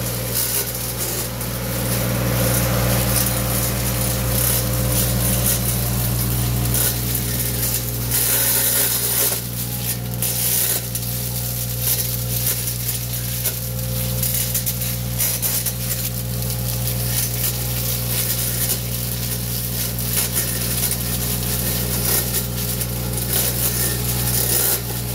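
Avant 423 compact loader's engine running at a steady speed while its hydraulically driven Rinieri multi-disc hedge cutter spins through the hedge. Over the engine runs a continuous crackling hiss with many small snaps as leaves and twigs are cut.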